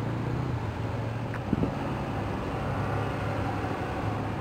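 A steady low engine hum over outdoor background noise, with a short knock about a second and a half in.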